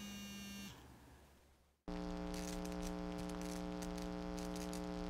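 A steady tone fades out in the first second, then after a brief hush a steady electrical hum with faint crackling starts abruptly about two seconds in: the buzz of a neon sign lighting up.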